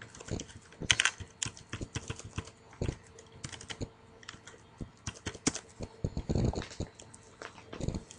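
Typing on a computer keyboard: irregular, uneven key clicks, with a short low rumble about six and a half seconds in.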